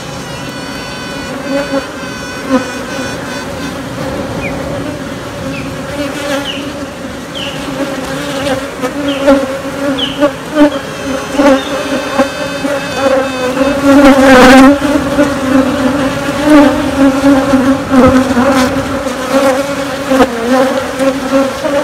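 Honey bee colony buzzing steadily, with a virgin queen piping over it: a series of high-pitched tones at the start, then short rising chirps, and louder pulsing notes in the second half.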